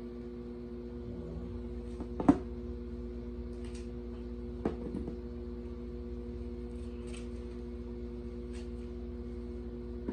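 Hands handling small plastic wireless microphone units and their cardboard packaging insert: a few sharp clicks and knocks as the units are pulled out and set down on a cardboard box, the loudest about two seconds in and another near five seconds, over a steady hum.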